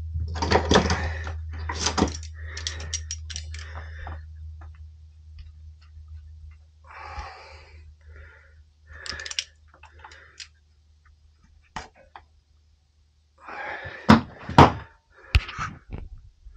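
Scattered knocks and clunks of hand tools and parts being handled, with a cluster of sharp knocks near the end. Under them a low steady hum fades away and is gone about thirteen seconds in.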